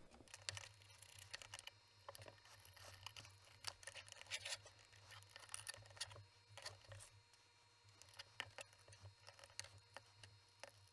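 Faint scrapes, taps and small clicks from handling a circuit board and an aluminium enclosure with its end panel, scattered irregularly throughout, over a steady low hum.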